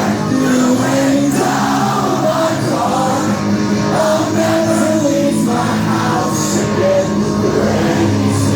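Live rock band playing with a singer's voice over guitars and drums, recorded from the crowd on a phone.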